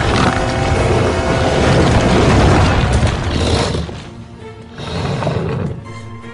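Dramatic orchestral film score with heavy booming hits and deep rumbling effects. It is loud for about the first four seconds, drops off briefly, then swells again for about a second before dropping near the end.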